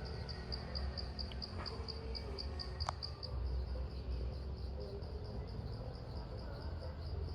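An insect chirping high and rhythmically at about five pulses a second, fading in the second half, over a low rumble.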